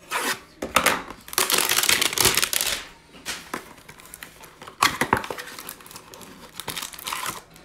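Plastic wrap being slit and torn off a cardboard trading-card hanger box, crinkling in a dense stretch for about a second and a half, then scattered crinkles and clicks as the box's cardboard flap is pulled open.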